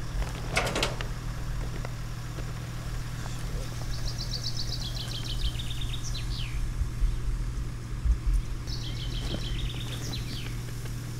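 A songbird sings two short phrases, each a quick run of high notes that steps down in pitch and ends in a falling flourish, over a steady low hum. A short rustle comes near the start.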